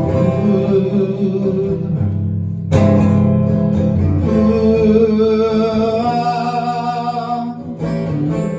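Live acoustic guitar playing with wordless held vocal notes, a sung passage without words between verses.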